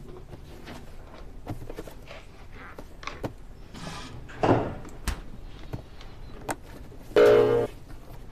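Handling sounds of a refrigerator and a boxed cake: a few soft knocks and clicks as the box is taken out, set down and opened, with a brief louder pitched sound about seven seconds in.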